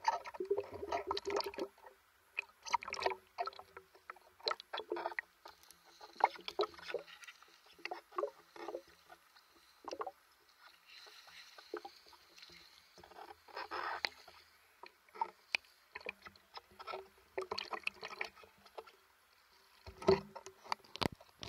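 Water splashing and sloshing at the surface around a speargun-mounted camera as a swimmer moves it in and out of the water, in irregular clusters with short quiet gaps between.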